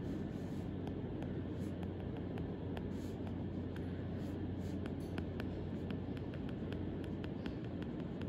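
Stylus tip tapping and sliding on an iPad's glass screen while handwriting: frequent small taps and clicks over a steady low hum.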